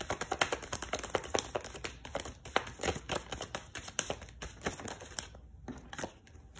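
Tarot deck being shuffled by hand: a rapid run of papery card flicks and taps that thins out about five seconds in.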